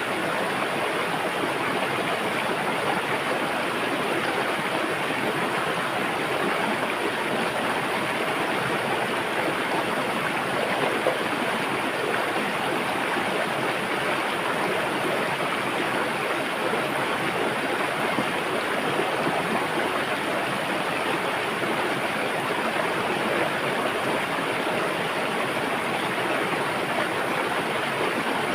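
River water flowing and rushing in a steady, even rush.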